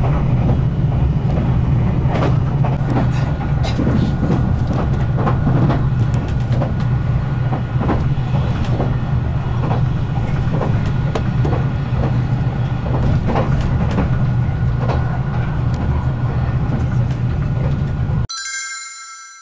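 Running noise of a limited express train heard from inside the passenger car: a steady low rumble with a stream of wheel clicks over the rails. Just before the end the ride noise cuts off and a brief bright chime-like tone fades out.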